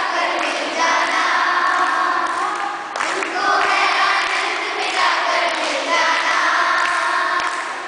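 A group of voices singing together in long held phrases, with short breaks about three seconds in and again about five seconds in.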